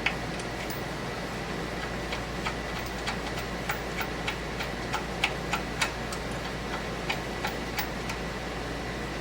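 A run of light, sharp clicks at fairly even spacing, about three a second, over a steady background hum.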